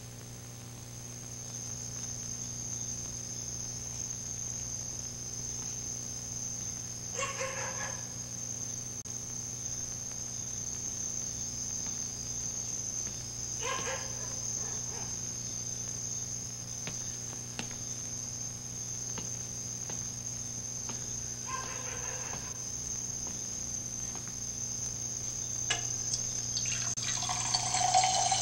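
Steady high trill of crickets over a low hum, with a short pitched call about every seven seconds. Near the end a tap starts running into a sink.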